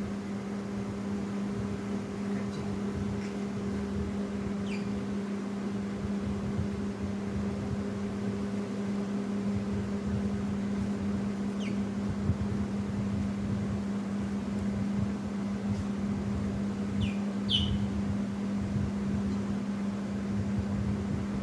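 Steady low mechanical hum, with a few faint short chirps from lovebirds scattered through, two of them close together past the middle.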